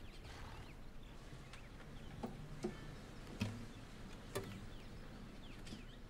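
Quiet horse-stable ambience: faint bird chirps and four scattered soft knocks through the middle.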